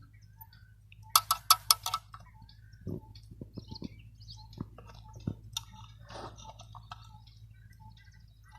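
Metal striking metal on an opened diesel engine's camshaft gear area: a quick run of about five sharp clinks a little after a second in, then scattered lighter knocks and taps, over a faint steady low hum.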